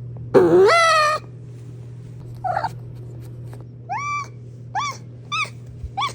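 Maine Coon cat meowing: one loud drawn-out meow about half a second in, then a string of five short, high-pitched mews.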